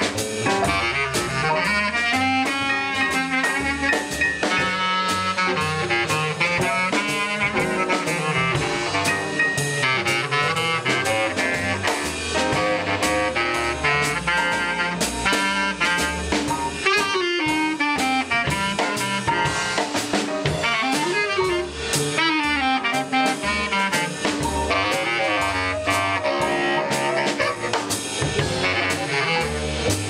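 Live jazz quintet playing a bebop tune: a saxophone line over grand piano, walking double bass and drum kit, with a steady cymbal beat.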